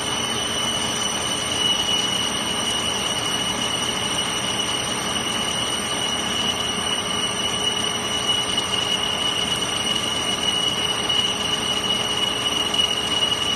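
Milling cutter in a Zayer machining centre's head cutting metal under flood coolant: a steady high-pitched whine over the even hiss of the coolant spray.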